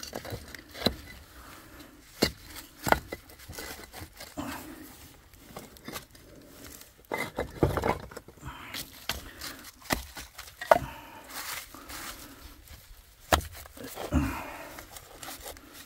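Concrete slabs being handled and set down on dry dirt against a block wall: scattered sharp knocks of slab on slab and short gritty scrapes as they are pushed into place.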